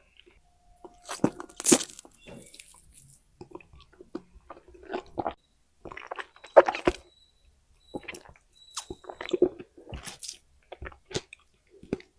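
Close-miked chewing of popping boba, with irregular wet crunches and small pops as the balls are bitten, the loudest bite about two seconds in and another just past the middle.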